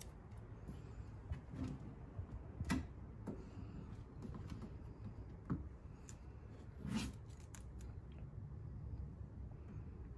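Faint handling noise: a few light clicks and rustles as a plastic rock guard is pressed against a car's fender and the red liner of its 3M adhesive tape is worked loose, over low room hum.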